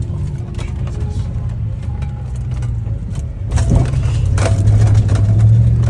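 Ford Raptor pickup truck's engine running, getting louder a little past halfway through.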